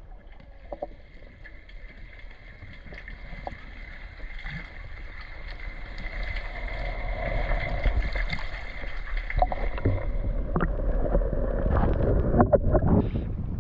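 Water lapping and splashing around a kayak, growing louder over the second half, with a few sharp splashes or knocks near the end.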